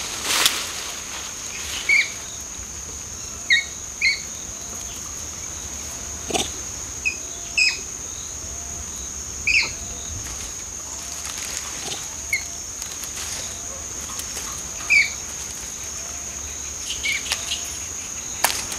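Insects droning steadily at a high pitch, with short sharp animal chirps scattered through it, a few of them louder, and a faint soft call repeating about once a second lower down.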